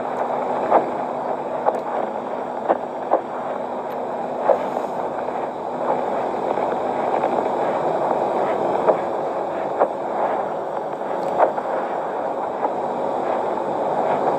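Steady hiss and low hum of a worn old film soundtrack, with scattered short clicks and pops every second or so.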